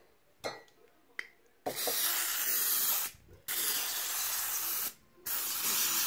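Aerosol can of cooking spray hissing into a bowl in three spurts of about a second and a half each, with short gaps between. A couple of light clicks come first.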